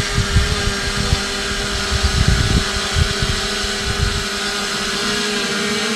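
Wind buffeting the microphone in irregular low gusts over a steady mechanical hum.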